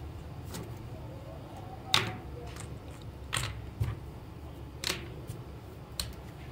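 Hard plastic controller shell pieces and a rod being picked up and set down on a cutting mat: a handful of short clacks and knocks, the loudest about two seconds in.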